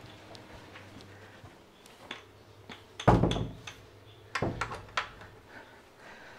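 A wooden panel door being shut: a heavy thud about three seconds in, then two lighter knocks over the next two seconds, with small clicks of handling in between.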